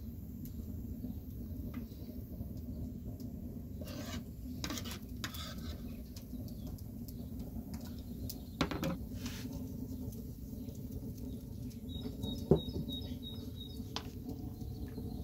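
Scattered knocks and taps of a kitchen knife on a bamboo cutting board and a ceramic bowl, over a steady low background rumble. Near the end a bird chirps about five times in quick succession, around the loudest knock.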